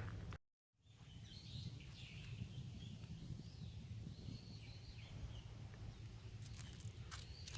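Birds calling and chirping in woodland over a low rumble of wind on the microphone, after the sound cuts out to silence for a moment just after the start. A few sharp clicks come near the end.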